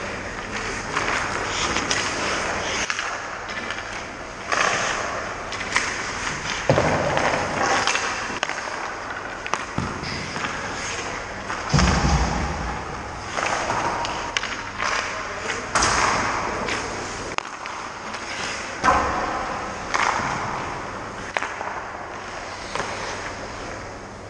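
Ice hockey skates scraping and cutting across the ice, with sharp thuds every couple of seconds as pucks are shot and hit the goalie's pads, the net and the boards.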